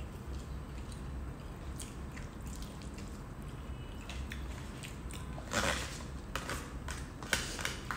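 Eating sounds: chewing and biting into a seaweed-wrapped onigiri, with small clicks of a fork and plastic food containers. A louder rustle comes about five and a half seconds in, and a sharp click about a second and a half later.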